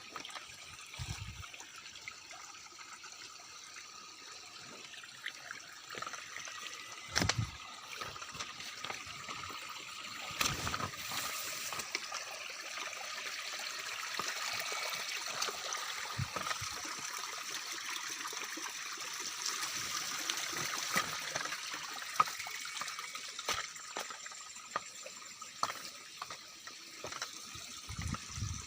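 Night chorus of insects, several steady high-pitched trills over a hiss that swells in the middle, with a few soft low thumps.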